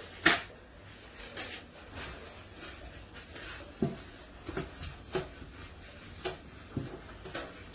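A paper towel torn off a roll, with a sharp snap about a quarter second in, then scattered light knocks and clicks of hands working at a kitchen counter and sink.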